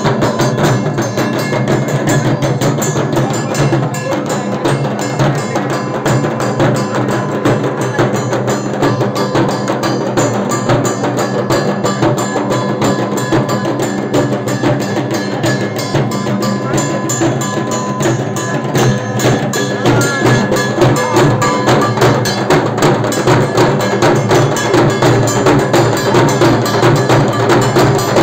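Several large barrel drums beaten in a fast, driving rhythm for puja drumming. A steady metallic ringing runs over the drumming.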